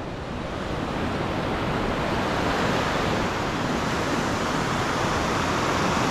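Steady rushing of sea surf, swelling over the first couple of seconds and then holding even.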